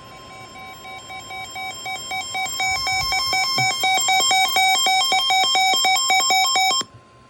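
Weather radio alert: a receiver's electronic alarm beeps in rapid pulses that get louder and faster, over the broadcast's steady single-pitch warning alarm tone. The beeping cuts off suddenly near the end, leaving the steady tone faintly.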